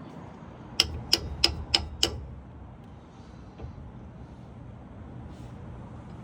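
Five sharp metal-on-metal taps in quick succession, about three a second, from a tool struck against the pin in a GM 10-bolt differential as it is worked to drive out the pin, which is wedged in tight.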